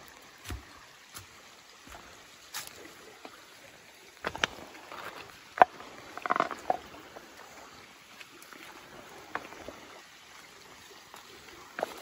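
Footsteps on dry leaves and creek stones: scattered sharp knocks and scuffs, busiest a little before halfway, with one loud knock just past the middle. A faint trickle of shallow water runs underneath.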